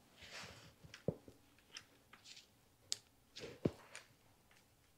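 Light clicks and knocks as suspension fork parts are handled and fitted together by hand, with a short rustle at the start. Three sharper knocks stand out: about a second in, near three seconds and shortly after.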